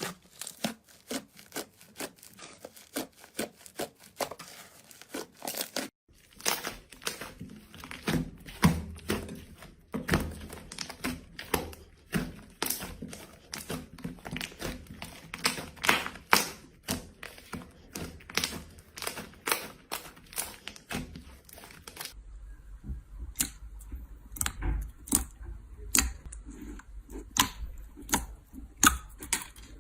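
Slime being squeezed and pressed by hand, giving a dense run of crackling clicks and small pops, several a second. The sound changes abruptly twice, as from one slime to another.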